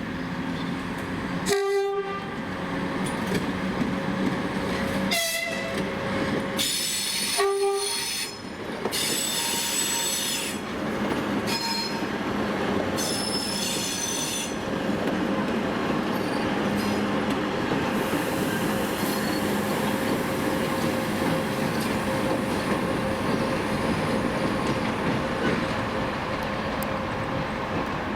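2TE116 twin-section diesel locomotive running past with a steady engine hum and rumble, giving a few short horn blasts in the first eight seconds as a greeting. High-pitched wheel squeal comes in from about seven seconds and fades by about fifteen seconds.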